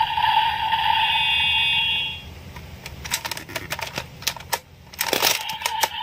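Electronic Kamen Rider Revice toy sound effect from the belt's small speaker: a steady, beeping electronic tone that stops about two seconds in. A run of sharp plastic clicks from the toy being handled follows.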